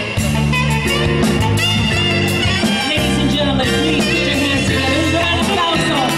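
Live jazz band music: a saxophone playing a bending melody line over electric keyboard and a drum kit with cymbal strokes.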